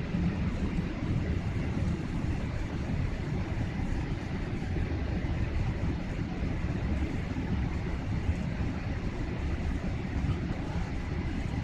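Airliner cabin noise on the descent to landing: the steady low rumble of the engines and rushing air, heard from inside the cabin, with a faint thin hum above it.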